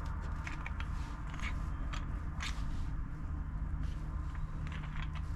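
Small scattered clicks and scrapes of a metal shaft being handled and fitted into a plastic screwdriver handle, over a steady low hum.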